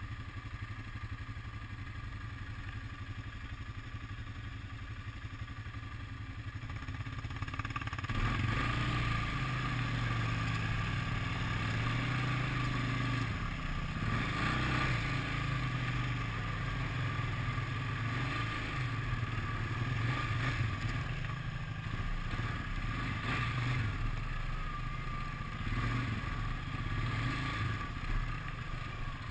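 ATV engine running on a muddy dirt trail. It is low and steady at first, then throttles up about eight seconds in and keeps running louder, with the pitch rising and falling.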